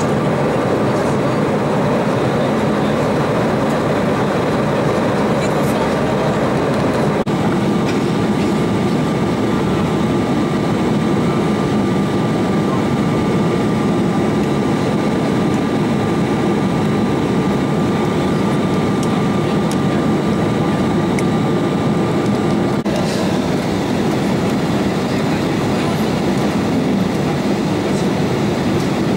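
Steady cabin noise inside an Embraer 190 airliner in flight: the wing-mounted General Electric CF34 turbofan engines and the rushing airflow make an even, unbroken noise. A faint steady whine comes in about seven seconds in and stops abruptly about two-thirds of the way through, where the noise also changes character.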